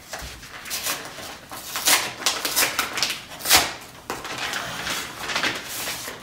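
A paper feedback card being handled, with irregular rustling and crinkling that is loudest about two and three and a half seconds in.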